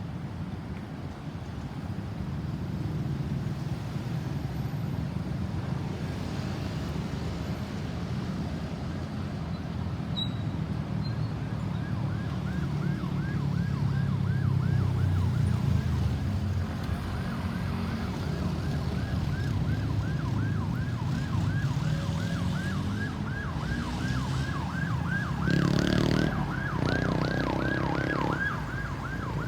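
Ambulance siren on a fast yelp, quick rising-and-falling sweeps about three or four a second, coming in about twelve seconds in over the low rumble of road traffic. The traffic noise swells for a couple of seconds near the end.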